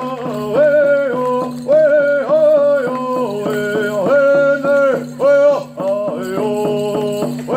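Hoop dance music: a voice sings short held phrases over a steady low hum.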